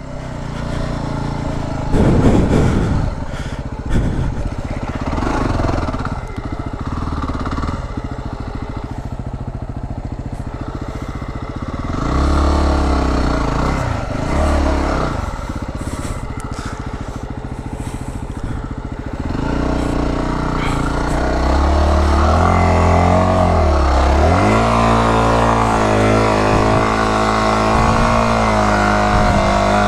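Yamaha WR250R's single-cylinder four-stroke engine revving up and down under load as the dirt bike is ridden through deep snow, with repeated dips and climbs in pitch, then holding steadier and higher for the last several seconds.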